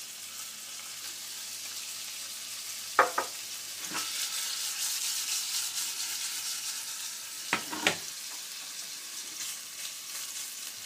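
Diced bacon sizzling in hot olive oil in a nonstick frying pan, the sizzle growing louder for a few seconds in the middle as the pan is shaken. A few sharp knocks of the pan and a wooden spatula come through it, one pair about three seconds in and another pair near eight seconds.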